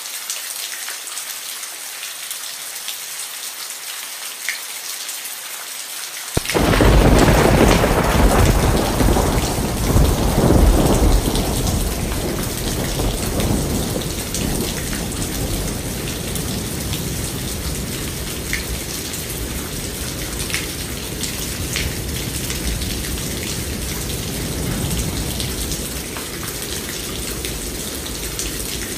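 Steady rain falling, with a thunderclap breaking in suddenly about six seconds in: a deep rumble that swells for several seconds and then slowly dies away under the rain.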